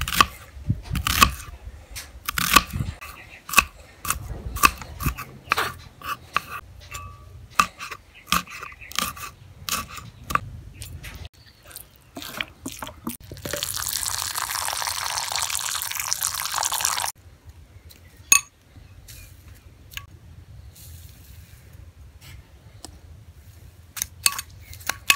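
A knife slicing shallots on a wooden chopping board, in quick sharp cuts for about ten seconds. Then soy sauce is poured into a glass bowl of chilies and shallots in a steady stream for about three seconds, followed by a few clinks of a spoon on the glass.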